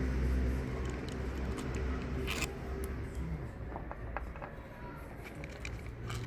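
Scattered sharp metallic clicks and taps of hand tools working the bolts of a removed car alternator, the loudest about two and a half seconds in. A steady low engine-like hum runs underneath and fades partway through.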